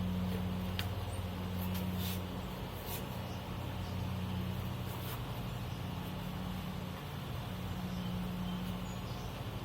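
Vehicle engine running steadily with a low hum, with a few light clicks over it.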